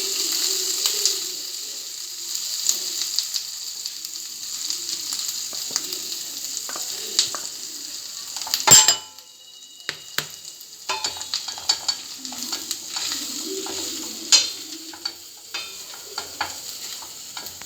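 Butter, ginger-garlic paste and maida (flour) sizzling in a pan while a spoon stirs and scrapes against it. Sizzling is steadiest in the first half; a sharp knock comes about halfway through, after which the sizzle is fainter and the spoon's clicking scrapes stand out.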